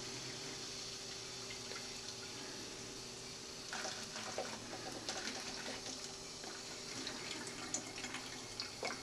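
Diet Coke being poured from measuring cups into plastic soda bottles: a steady pour of fizzy liquid, with scattered small crackles from about four seconds in.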